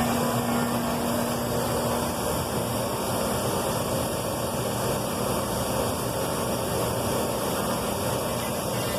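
CNC router running through an automatic tool pickup and touch-off: a steady mechanical noise, with a low motor tone that stops about two seconds in.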